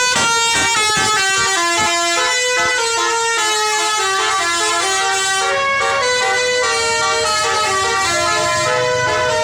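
Basuri musical bus horn ("telolet" horn) playing a melody: loud, multi-toned horn notes stepping from pitch to pitch about every half second, with no break.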